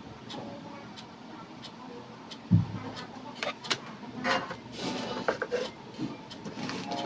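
Handling noises from work on the wiring: a single low thump about two and a half seconds in, followed by a run of light clicks and brief rustles.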